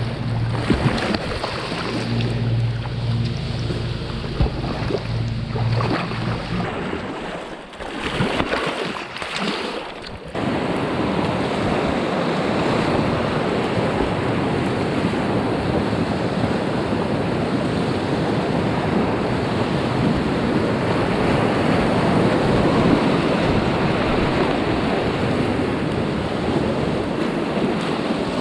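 Rushing river whitewater heard from a kayak running a rapid, with water splashing close to the microphone. A low hum sits under the water for the first several seconds, the sound dips and breaks a few times around the 7 to 10 second mark, and then becomes a loud, even rush.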